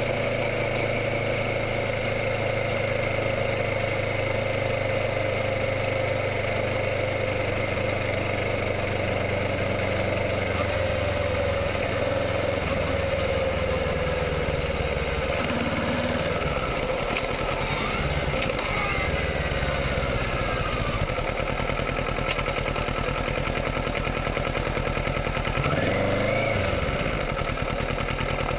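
Kawasaki Ninja 650's parallel-twin engine running while riding, holding a steady note for the first ten seconds or so, then revs falling and rising several times in the second half.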